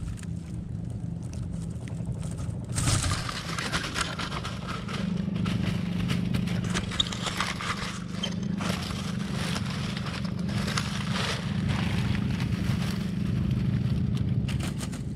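Scraping, rustling and crackling from handling a small, wriggling fish on the line while unhooking it, beginning about three seconds in, over a steady low hum.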